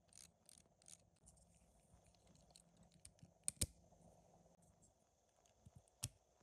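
LEGO Technic plastic parts clicking as they are handled and pressed together, with light ticks, two sharp clacks about three and a half seconds in, and another near the end.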